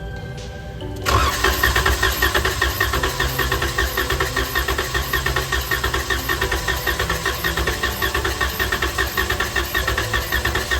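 Starter cranking the 2015 Ram 1500's 3.6L V6 over without it starting, for a compression test on cylinder 5. The cranking starts about a second in and goes on in an even pulsing rhythm for nearly ten seconds before stopping.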